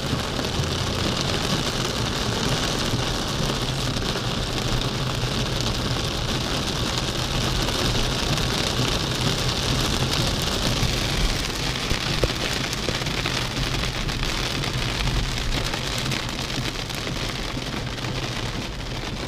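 Heavy rain drumming on a car's roof and windscreen, heard from inside the moving car, with a low steady engine hum and tyres hissing through standing water underneath.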